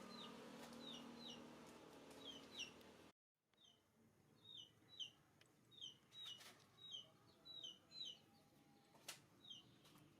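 Faint, short high chirps from a small animal, repeating about twice a second and often in quick pairs, each sweeping downward in pitch. The sound drops out completely for a moment about three seconds in.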